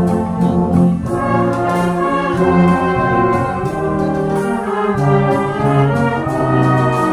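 Concert band of brass and woodwinds playing together, a melody moving in held notes over sustained low brass.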